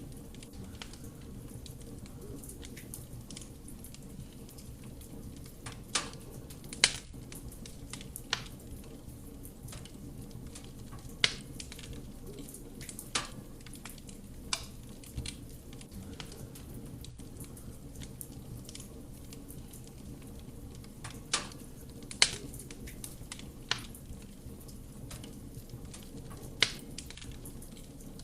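Wood fire burning in a fireplace: a steady low rush of flame with sharp, irregular crackles and pops from the burning wood, about a dozen over the stretch.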